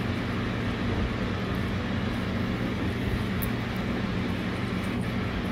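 Steady rain falling over the street, an even hiss with a constant low hum underneath.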